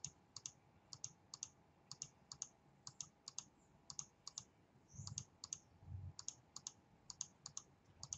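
Faint computer mouse clicks in pairs, about one pair a second: each pair picks a line and then the side to copy it to, repeating an AutoCAD offset command. Two soft low thuds come about five and six seconds in.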